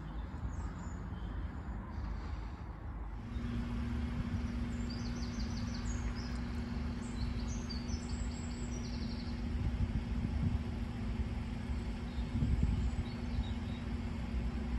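Wind rumbling on the microphone, with birds chirping for a few seconds in the middle. A steady low hum starts about three seconds in and holds to the end.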